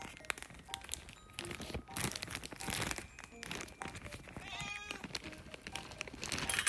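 A cat meowing over a run of crinkling and rustling noises, with light background music.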